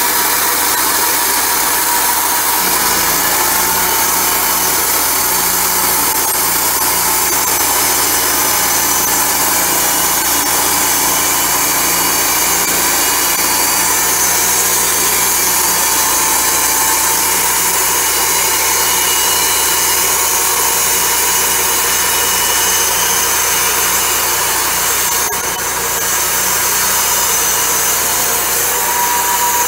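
Wood-Mizer hydraulic portable band sawmill running, its engine holding a steady speed as the band blade cuts lengthwise through a log. The loud, even noise starts abruptly and dips briefly near the end.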